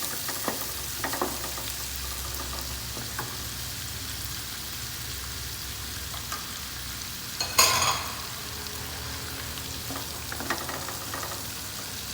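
Shallots and garlic sizzling as they sauté in melted butter in a frying pan. Scattered taps of a utensil are heard as they are stirred, and one brief, louder clatter comes about two-thirds of the way in.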